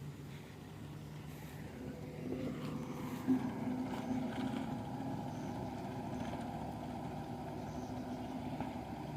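Engine of heavy road-construction machinery running steadily, getting a little louder about two seconds in, with one short knock about three seconds in.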